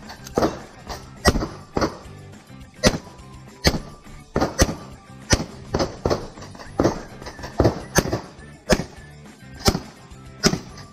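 A string of pistol shots fired through mesh shooting ports, about seventeen in all, at irregular spacing with some fired in quick pairs as the shooter engages targets during a timed course of fire.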